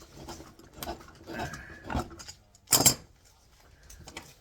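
Short clicks and knocks of a circuit breaker and hand tools being worked at by hand, trying to force the pressed-together parts apart. One louder, sharper clatter comes a little under three seconds in.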